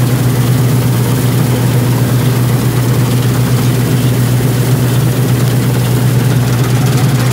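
Combine harvester's diesel engine running steadily while it cuts wheat, a loud, even low drone heard from on board the machine.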